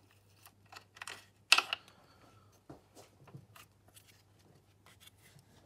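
Scattered small metallic clicks and scrapes of a 10 mm spanner being worked on the fuel rail bolts of a BMW E46's M54 engine, with one sharper, louder click about one and a half seconds in.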